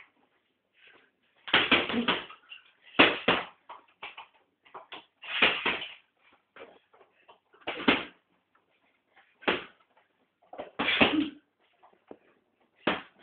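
Boxing gloves thudding into a heavy punching bag in a small room: irregular punches, some single and some in quick pairs, about every one to two seconds.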